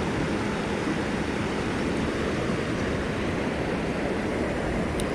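Steady rushing of creek water flowing over rocks.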